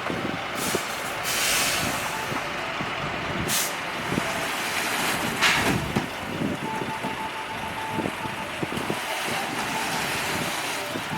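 Diesel engines of heavy dump trucks and earthmoving machinery running, with several short hisses of air brakes. A rapid beeping alarm starts a little past halfway.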